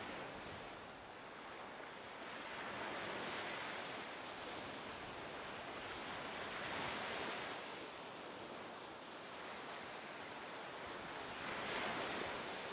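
Rushing sea and wind noise that swells and eases every four to five seconds, like waves and wash on open water.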